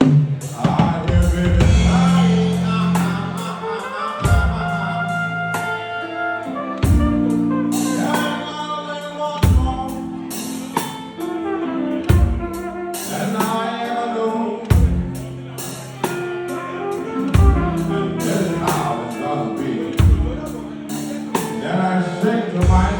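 Slow music led by a flugelhorn melody over a drum kit, with a strong drum beat falling about every two and a half seconds.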